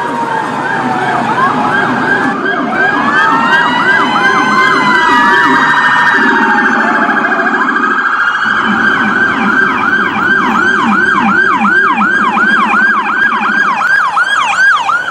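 Electronic emergency-vehicle siren sounding loudly, several tones overlapping. Slow rising-and-falling wails in the first half give way to a fast yelp of about three falling sweeps a second, over a lower rapid warble.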